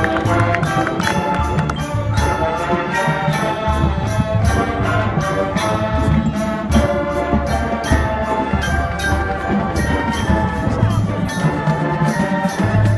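High school marching band playing: held chords over a steady drum beat.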